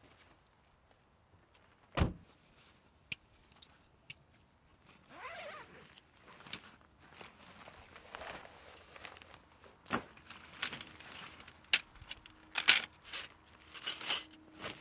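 A Jeep Gladiator's rear door shutting with a single solid thump about two seconds in. Then rustling and handling of a nylon gear bag, with several sharp clicks that come thicker near the end.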